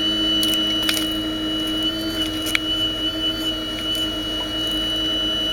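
Radio-controlled scale Hitachi 870 excavator running, its electric motors giving a steady high whine as the boom and bucket move, with a few sharp clicks.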